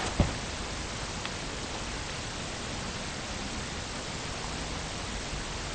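Steady hiss of quiet room tone and microphone noise, with one short click just after the start.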